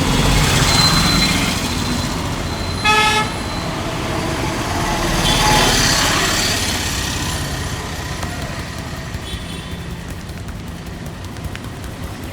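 Road traffic passing, swelling twice as vehicles go by, with one short vehicle horn toot about three seconds in.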